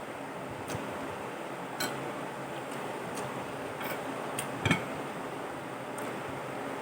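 Eating sounds: scattered light clicks of utensils against a plate, about seven in all, the loudest with a dull knock a little under five seconds in, over a steady background hiss.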